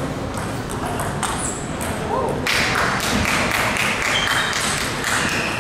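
Table tennis ball in play: a run of sharp clicks as the celluloid ball strikes rackets and the table, with a rising murmur of voices in the hall from about halfway.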